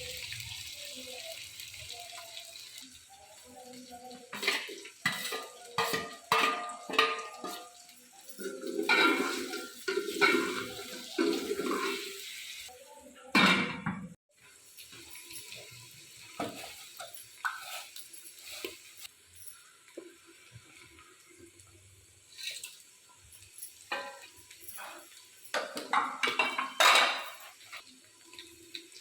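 Kitchen work: pots and metal utensils clattering irregularly, with spells of running or splashing water.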